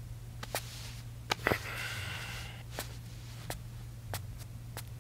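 Footsteps in a quiet room: sparse light taps that settle into an even walking pace, about three steps every two seconds, in the second half. They sit over a steady low hum, with a brief soft rustle about a second and a half in.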